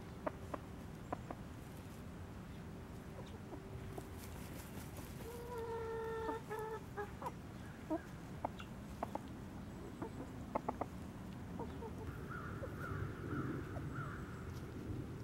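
Silkie chickens clucking, with one drawn-out call about halfway through and a softer wavering call near the end. Scattered light clicks and rustles from pecking at the ground among straw.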